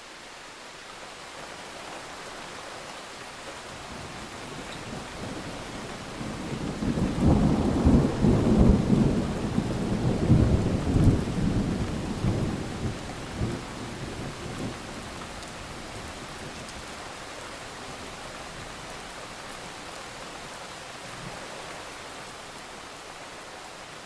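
Steady rain hissing, with a long roll of thunder that swells about six seconds in, rumbles loudest for several seconds and fades away by about fifteen seconds.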